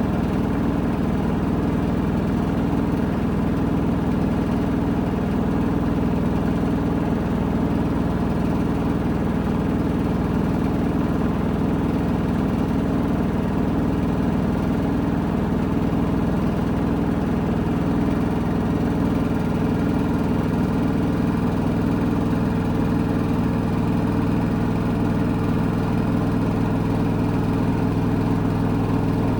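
Washing machine drum spinning at a steady speed: a continuous low motor hum and whir with a faint, even pulse from the turning drum.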